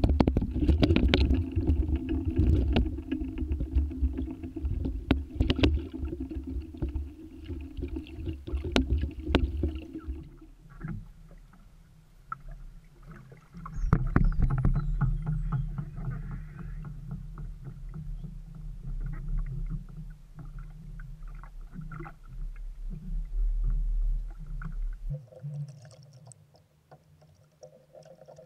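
A small boat's motor runs at low speed as the skiff moves, with a steady low hum and many sharp knocks and rattles from the hull in the first ten seconds. About ten seconds in the engine note changes, and near the end the low rumble drops away, leaving a quieter, higher hum.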